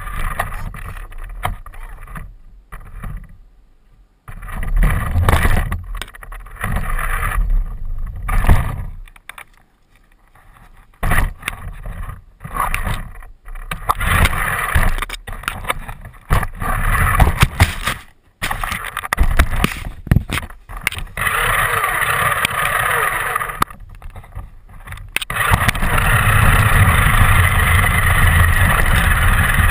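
RC car running, heard from a camera mounted on the car: stop-start bursts of motor and tyre noise with knocks and scrapes, then steady and louder for the last few seconds.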